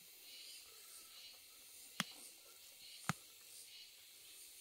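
Two sharp knocks about a second apart, over a faint, wavering high-pitched hiss of forest insects.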